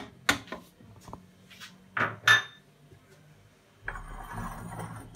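Sharp clinks of a spoon knocking against the food processor's bowl while butter is added, in two pairs: one right at the start and one about two seconds in. Near the end comes about a second of duller clatter and rustling on the countertop.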